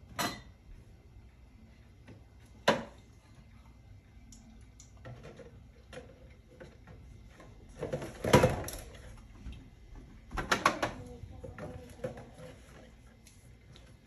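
Scattered knocks and clinks of drink cans and small cardboard boxes being handled and set down, with a louder cluster about eight seconds in and a quick run of several taps about ten seconds in.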